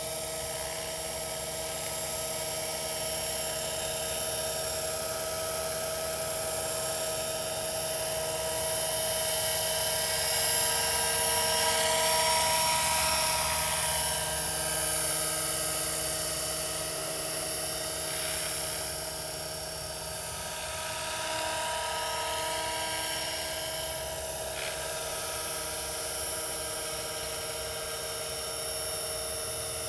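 Scale radio-controlled AS350 model helicopter flying: a steady high whine of its drivetrain and rotor, getting louder as it passes close about twelve seconds in, then easing off again.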